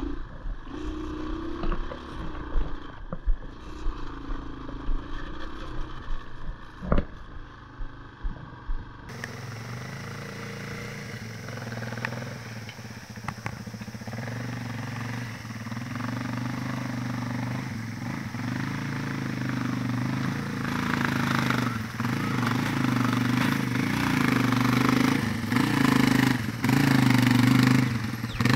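Yamaha Serow 225's single-cylinder four-stroke engine pulling up a steep off-road climb, its pitch rising and falling as the throttle works, with sharp knocks and rattles from the rough trail. About nine seconds in the sound changes to the bike heard from the hillside, its engine steadily growing louder as it climbs toward the listener.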